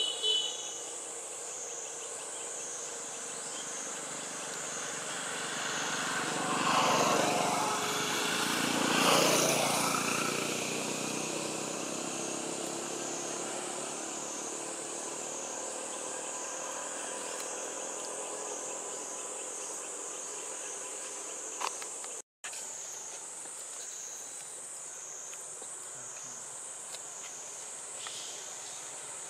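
A steady, high insect chorus with a regular wavering pulse runs throughout. About six to ten seconds in, a passing vehicle swells and fades, and this is the loudest sound.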